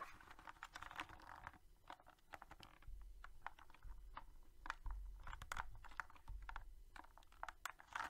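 A Rapoo V500 budget plastic TKL mechanical keyboard being gripped and flexed by hand: faint, irregular clicks from its keycaps and case, with a few dull knocks against the desk. The case does not creak under the bend.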